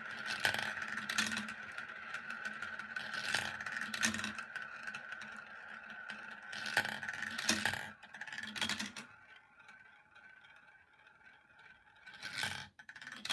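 Marbles rolling around the plastic funnel bowl of a toy marble run: a steady rolling whir broken every second or two by sharp plastic clacks. After about nine seconds, as the bowl empties, the rolling fades to a faint rattle, with one last clack near the end.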